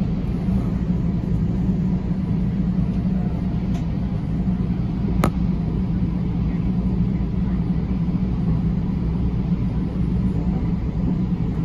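Steady low rumble of a Sounder commuter train running along the tracks, heard from inside the passenger car, with one sharp click about five seconds in.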